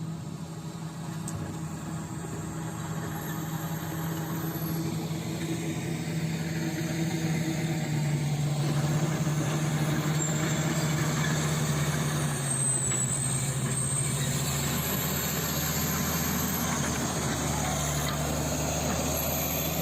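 Komatsu D85SS bulldozer's diesel engine running under work, growing louder over the first several seconds. Its note shifts up and down a little as it works.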